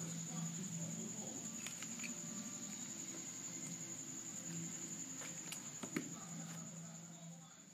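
Plastic clicks and taps of a Square-1 puzzle being turned by hand. A few sharp clicks stand out, the sharpest about six seconds in. Under them run a steady high-pitched whine and a low hum that comes and goes.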